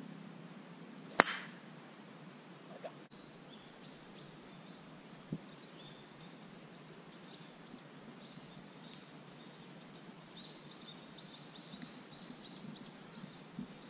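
Golf club striking the ball on a tee shot: one sharp click about a second in. After it, faint rapid high chirping calls go on in the background.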